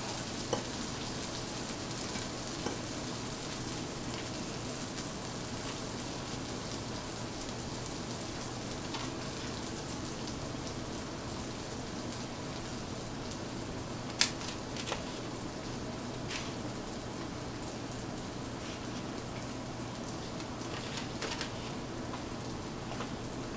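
Sausage patties sizzling steadily in a frying pan whose burner has been turned off, over a faint low hum, with a few light clicks, the sharpest about fourteen seconds in.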